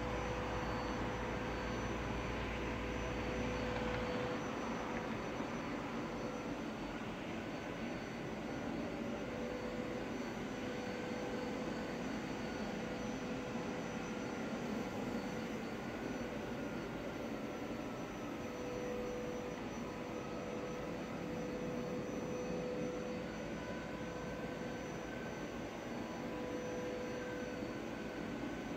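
A steady mechanical roar with a faint hum and a slowly wavering whine, holding the same level throughout.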